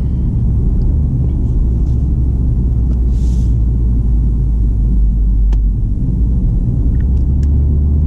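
Steady low rumble of tyre and engine noise inside the cabin of a BMW M140i cruising on run-flat tyres, with a short hiss about three seconds in.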